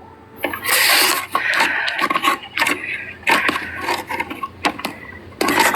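Close handling noise: an irregular run of knocks, clicks and scrapes as hard objects are moved about near the microphone, with a burst of rustling and scraping about half a second in.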